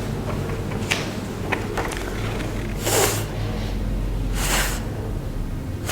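A woman making the phonics sound of the letter F, a voiceless "fff" hiss of breath through teeth on lip, twice, each about half a second long, about three seconds in and again a second and a half later. A steady low hum runs underneath.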